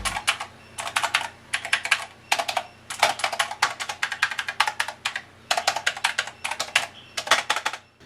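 Typing on a GameSir GK300 wireless mechanical keyboard with TTC switches. The keys click in quick runs, several bursts with short pauses between them.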